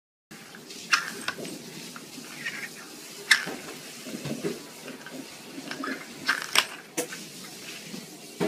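Small plastic lids clacking and sliding on a wooden floor as a kitten bats them about, with several sharp clicks spread out among quieter scuffing.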